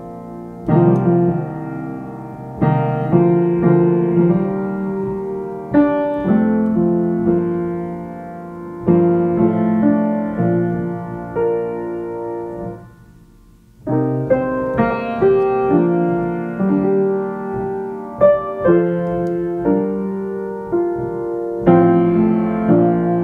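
Background piano music playing slow chords, with new notes struck every second or two. It dips almost to silence a little past halfway, then picks up again.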